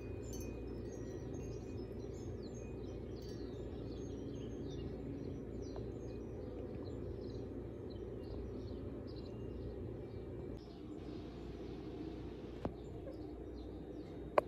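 Small birds chirping outside in quick, high, repeated calls over a steady low hum; the chirps thin out after about ten seconds. A single sharp click near the end.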